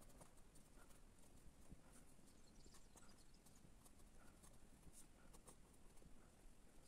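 Very faint scratching and light tapping of a pen drawing lines on paper, in near silence.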